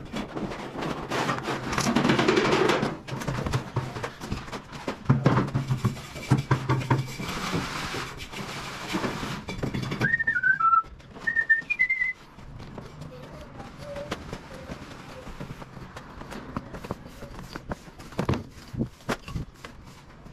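A man whistling a short run of notes about ten seconds in, among the rustling, shuffling and knocks of someone moving about with the camera, with a few sharper knocks near the end.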